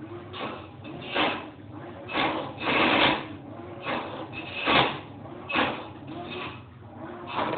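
Washing machine running with a harsh noise that repeats unevenly about once a second over a steady low hum: a sign that something is wrong with the machine.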